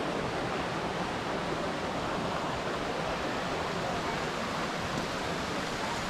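Shallow rocky stream running over stones, with a small cascade upstream: a steady, even rush of water.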